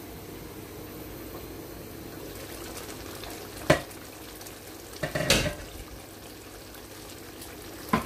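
Tomato stew simmering in a pan, a steady bubbling hiss, with a sharp clink of the glass pan lid coming off a little over halfway through, a short clatter about a second and a half later, and another knock near the end.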